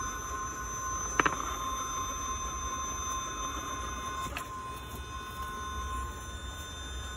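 Castle 2280kv Slate brushless motor and gear drive of an RC rock crawler whining steadily as the truck crawls slowly over rocks. There is a sharp double click about a second in and a fainter click about four seconds in.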